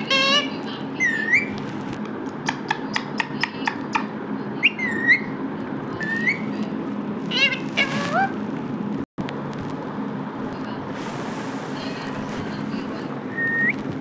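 Rose-ringed parakeet giving short, shrill whistled calls at intervals, several ending in a quick upward flick, with a quick run of sharp clicks a few seconds in. A steady low hum runs underneath.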